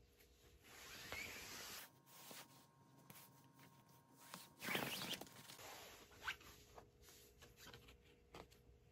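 Tarot cards sliding and rustling across a bed cover as the deck is spread out, with the loudest swish about halfway through, then a few light ticks as single cards are handled.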